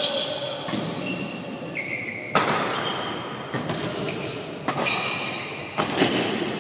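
Badminton rally: rackets striking the shuttlecock about five times, a sharp crack a second or so apart. Between the strikes come short high squeaks of shoes on the court floor.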